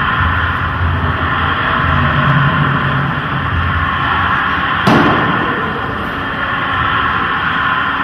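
Electronic score for a dance performance: a steady, noisy drone over a pulsing low rumble, with one sharp bang about five seconds in.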